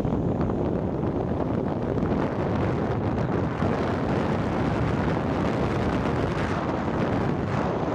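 Steady wind rumble on the microphone mixed with the running noise of the vehicle the camera rides in.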